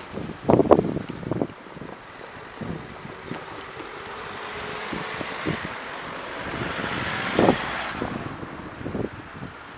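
Road traffic crossing a railway level crossing: cars and a van pass by, their tyres knocking over the rails, sharply about half a second in, again near 7.5 seconds and once more near the end.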